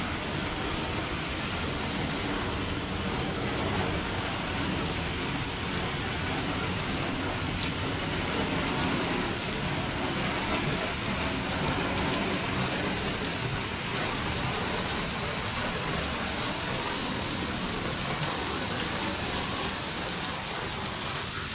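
Craftsman 2450 PSI pressure washer running steadily, its water spray hissing against the side panels of a box truck while the panels are rinsed down.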